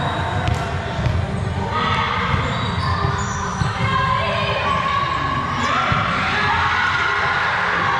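Sounds of a volleyball game in a gymnasium: irregular low thuds of the ball and players' feet on the floor, with players' voices calling out in the background.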